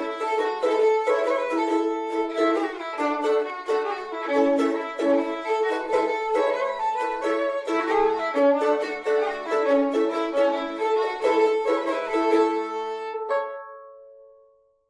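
Fiddle playing an old-time tune in quick bowed notes. About thirteen seconds in it stops, and the last note rings briefly and fades away.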